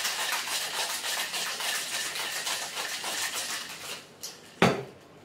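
Ice rattling hard inside a copper cocktail shaker being shaken fast and evenly, stopping about four seconds in. This is followed by a single sharp knock, the loudest sound.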